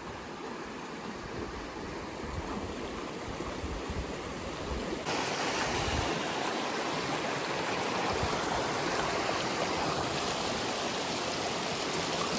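Creek water rushing and gurgling in a steady wash of noise, stepping up to louder about five seconds in.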